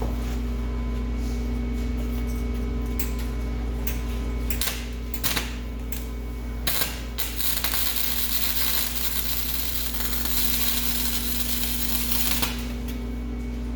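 Welding on an exhaust pipe: a few short bursts of arc noise, then a continuous weld run of about five seconds, over a steady electrical hum.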